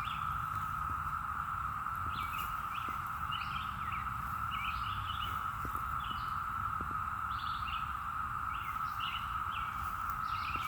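Chorus of 17-year periodical cicadas, one continuous even drone, with birds chirping on and off over it.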